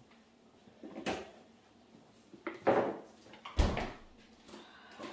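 Household clatter: three short knocks and scrapes, the loudest a thump about three and a half seconds in.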